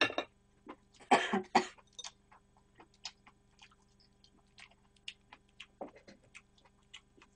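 A person chewing a mouthful of boiled pork wrap close to the microphone: scattered small wet mouth clicks and smacks, with two short loud bursts of breath about a second in.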